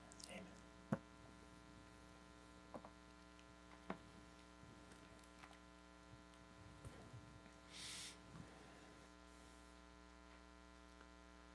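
Near silence: a steady low electrical mains hum, with a few faint knocks and a short hiss about eight seconds in.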